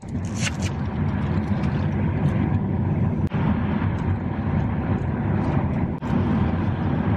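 Steady rushing wind and road noise of a moving car, heard from inside the cabin with a side window open.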